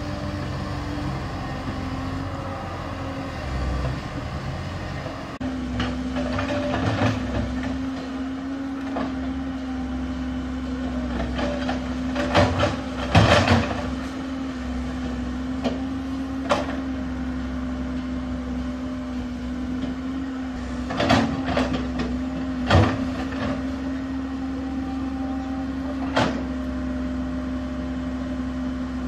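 Komatsu PC130 hydraulic excavator's diesel engine running steadily with a constant hum, with several sharp metallic clanks and knocks from the machine as it works the mud, the loudest about halfway through.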